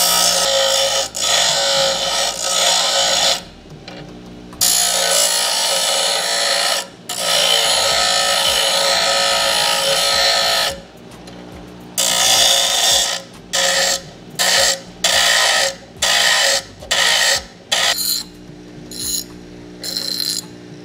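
A Lotus 6-inch, 1/3 hp bench grinder's wheel grinding a small piece of steel angle bar pressed hard against it. There are three long grinds over the first ten seconds, then a run of short touches about twice a second that get fainter toward the end, all over the steady hum of the motor. Under the hardest pressure the motor weakens a little.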